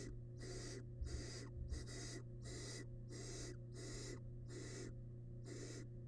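Barn owl nestlings giving their rasping, hissing begging calls ("snoring"), repeated steadily at about two hisses a second, over a steady low hum. A couple of soft thumps come about a second in.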